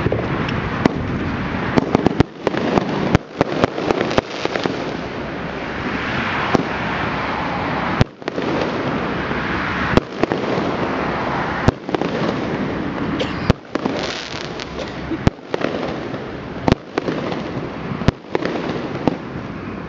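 Fireworks going off in numbers: a dense, continuous din of many bursts, with louder sharp bangs about once a second at irregular intervals.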